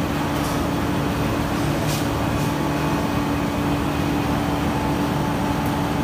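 Motor-tilting induction melting furnace equipment humming steadily with one constant mid-low tone over a low rumble while the furnace body is tilted back upright after a pour, with a few faint clicks.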